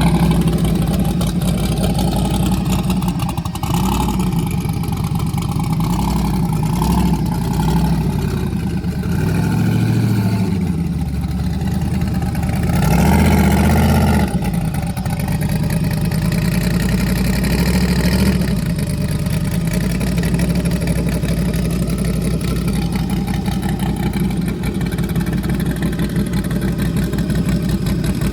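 Car engine running, its pitch rising and falling as it is driven, with a louder surge about halfway through.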